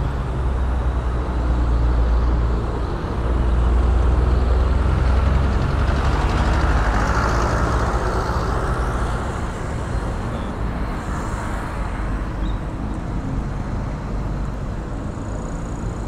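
Busy road traffic with trucks and cars passing close by: a low engine rumble and tyre noise that swells as vehicles go past, loudest in the first half.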